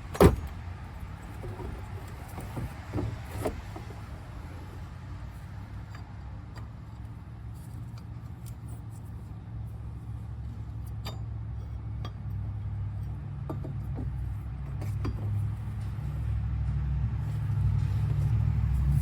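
Hand tools working the water pump pulley bolts: a sharp metallic clack just after the start, then scattered lighter clicks and taps of the wrench and screwdriver on the pulley. Under them runs a steady low rumble that grows louder toward the end.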